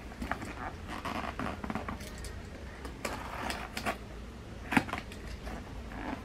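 Hands working at a taped cardboard shipping box, trying to get it open: rustling and scratching with scattered sharp clicks, and one louder click about three-quarters of the way through.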